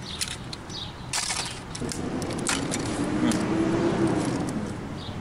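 Circuit boards being handled and pulled off a flatscreen TV's aluminium back panel: a few sharp clacks and clinks of board and metal, the strongest about a second in. A low steady hum runs through the middle.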